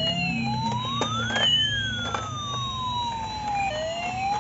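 Battery-powered toy ambulance playing its electronic siren, a single tone wailing slowly up and down, over the low whirr of its small drive motor as it runs across the floor.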